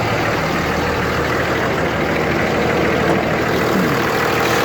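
2003 Dodge Ram 2500's 5.9-litre Cummins inline-six turbo-diesel idling steadily, heard with the hood open.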